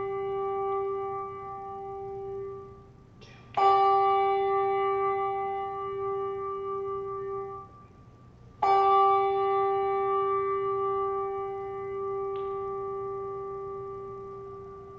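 A handbell rung as the 'three chimes' that open worship, each strike one clear ringing note. The first chime, already sounding, is damped after a few seconds. The second is struck about three and a half seconds in and stopped short about four seconds later. The third is struck a little past halfway and left to ring and fade away.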